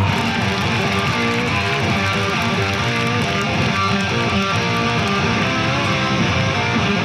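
Rock music with strummed guitar over a full, steady band sound and a prominent bass line.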